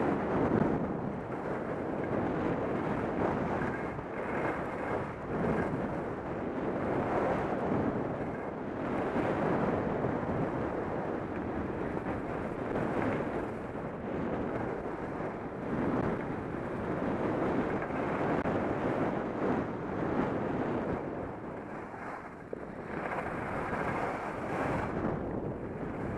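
Wind rushing over a helmet-mounted camera's microphone while skiing downhill, mixed with skis scraping and hissing on firm snow, swelling and easing every couple of seconds.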